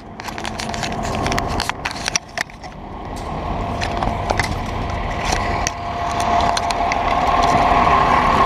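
Fire engine's diesel engine running, with a steady high whine that grows louder toward the end, over scattered clicks and knocks from the body-worn camera being handled and jostled.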